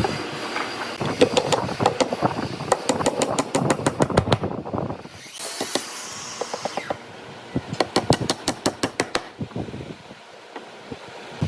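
Workshop tool work on wood: quick runs of sharp clicks and knocks, about seven a second, with a brief hiss about midway.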